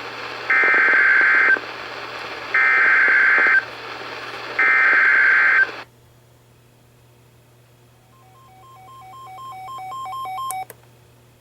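Three one-second bursts of NOAA Weather Radio SAME digital data tones, warbling and buzzy, over radio static. Coming right after the spoken flood warning, they are the end-of-message code. After a pause, a weather alert receiver beeps rapidly, alternating between two pitches and growing louder, then stops suddenly.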